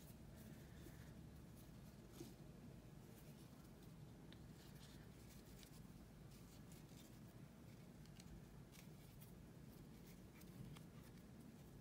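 Near silence: faint rustles and small ticks of fingers handling and knotting yarn ends, over a low room hum.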